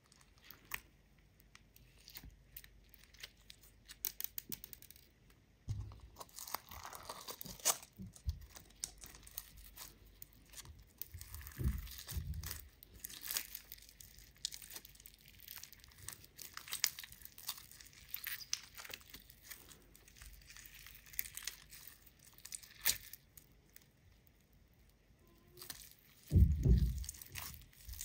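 Hands squeezing and kneading sticky slime packed with small foam beads: a steady run of crackling, popping and crunching as the slime is pulled apart and pressed together, with a few louder, lower squishes, the loudest about two seconds before the end.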